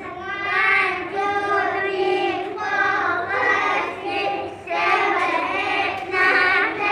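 Young children singing an action song, in phrases broken by short pauses.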